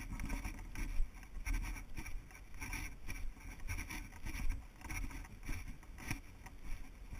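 Footsteps crunching on a dirt hiking trail, about two steps a second, over a low rumble of wind and jostling on a body-worn action camera.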